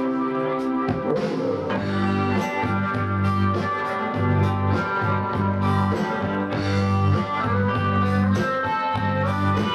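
Live band playing an instrumental passage with electric guitar, bass guitar and drums, heard through a camcorder's built-in microphone. About a second in, the bass and drums take up a steady pulsing beat.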